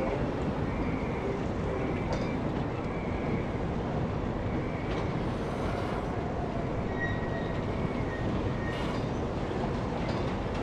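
Steady low rumbling hiss from a 1929 Sentinel steam waggon's vertical boiler and firebox, with a few faint, short high whistles over it.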